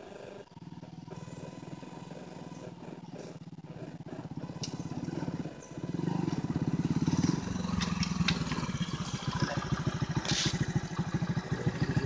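Motorcycle engine running as the bike rides over grass toward the listener, growing louder as it approaches. It dips briefly about six seconds in, then comes back stronger and settles into a steady, pulsing beat as the bike slows and stops close by.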